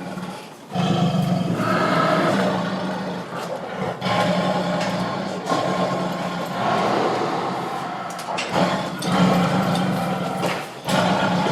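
Angry tiger growling and roaring: a run of long, drawn-out growls, each a few seconds long, with brief breaks between them.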